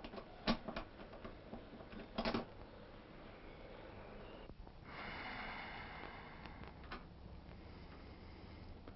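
Faint clicks and knocks, several in the first two and a half seconds, then a soft hiss lasting about two seconds from around five seconds in, closed by a click.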